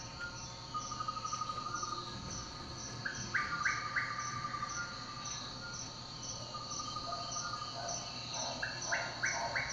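A soundscape of crickets chirping in a steady pulse about twice a second, with a run of rising bird-like chirps about three and a half seconds in and again near the end, played as the dance's sound score.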